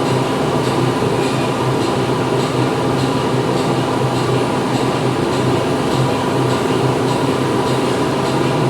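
Factory machinery running steadily: a dense mechanical din with a constant low hum and light, regular clicking at about three a second.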